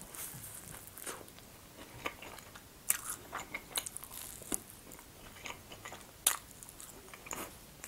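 Close-miked biting and chewing of a choux cream puff, with irregular sharp crunches of the pastry shell and mouth clicks, the strongest about three, four and a half and six seconds in.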